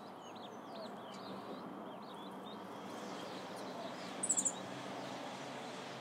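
Wild turkey poults peeping: many faint, short, high peeps in the first couple of seconds over a steady outdoor hiss. About four seconds in, a brief, very high chirp is the loudest sound.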